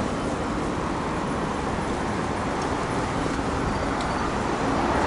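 Steady noise of road traffic from cars passing on a busy city avenue.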